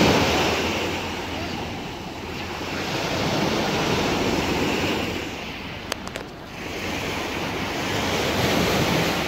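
Waves washing onto a rocky shore, the surf noise swelling and ebbing every few seconds, with wind buffeting the microphone. A few light clicks come about six seconds in.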